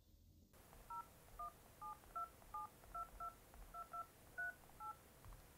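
iPhone keypad tones as a phone number is dialed: eleven short, faint two-note DTMF beeps, one per key press, at an uneven pace of about two or three a second.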